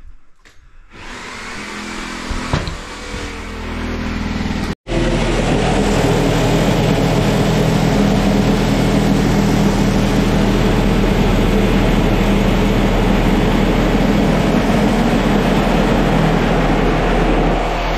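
DeWalt reciprocating saw running steadily while cutting through the rotted bathroom subfloor along the wall. A machine noise builds over the first few seconds, then breaks off briefly about five seconds in before the saw runs on at full speed.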